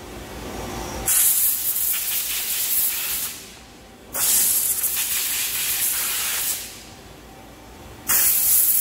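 Compressed-air blow gun hissing in three sharp bursts, each starting with a click as the trigger opens, blowing chips and coolant off freshly turned parts at a CNC lathe.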